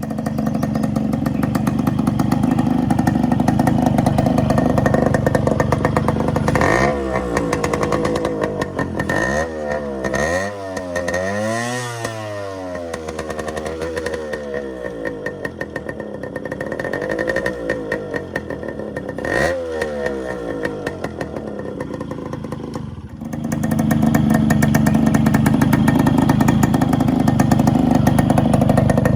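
Yamaha RX135 single-cylinder two-stroke engine running through its original muffler. It is revved up and down several times in the middle, then runs steadily and louder again for the last several seconds.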